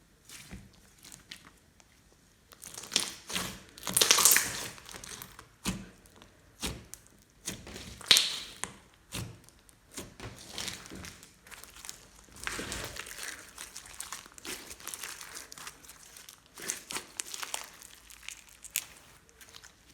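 Glossy slime being squished and stretched by hand, with irregular sticky crackles, clicks and pops that are loudest about 4 and 8 seconds in.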